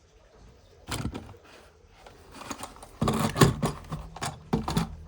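Plastic toys and packaging being handled: irregular clicks and knocks with scraping, which grow louder and busier about three seconds in with a low rumble under them.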